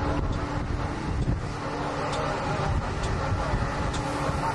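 Wind rumbling on the microphone over a steady low hum.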